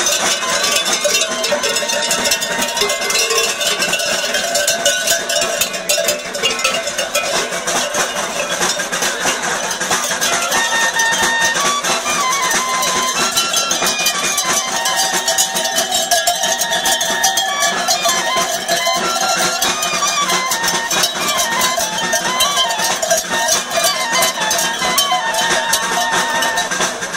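Many cowbells on a herd of cattle clanking continuously as the animals walk out, a dense jangle of metal strokes with held ringing pitches.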